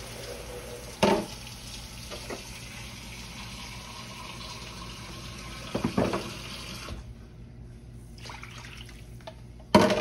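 Water pouring into a skillet of sautéed onions and browned flour, a steady hiss that stops about seven seconds in. Sharp knocks come about a second in, near six seconds and, loudest, just before the end.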